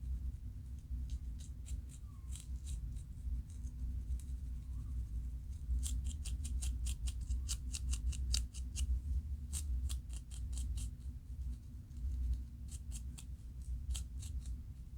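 Scalp being scratched to loosen dandruff, heard as quick, crisp scratch strokes, several a second, coming in runs that are busiest in the middle. A steady low hum lies underneath.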